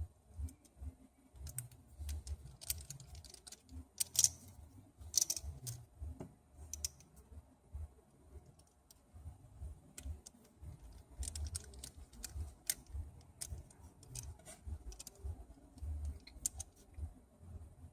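Irregular small clicks and taps of precision repair tools and tiny screws and parts on an iPhone 6 Plus being reassembled, over soft low bumps of handling. A few sharper clicks stand out about four and five seconds in.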